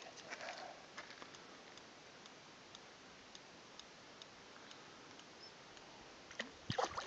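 Faint scattered ticks and clicks, then a short burst of louder splashing near the end as the hooked carp breaks the surface close to the bank.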